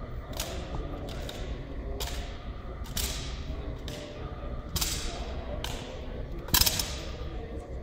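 Wooden drill rifles being handled in a silent drill routine: about seven sharp slaps and knocks at uneven intervals as hands strike and catch the rifles, the loudest near the end. Each rings out in the echo of a large hall.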